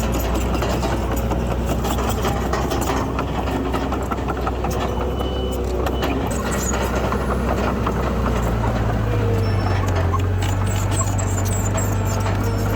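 Diesel engine of heavy earthmoving machinery running steadily, with a deeper engine note coming in about eight seconds in and faint clicking and clanking throughout.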